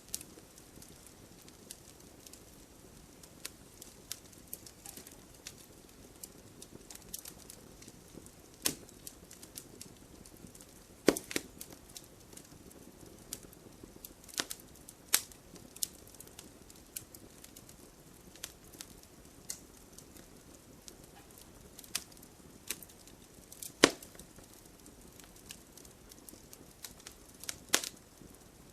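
Burning firewood crackling, with irregular sharp pops and snaps over a faint steady hiss; two louder pops stand out, one about eleven seconds in and one near twenty-four seconds.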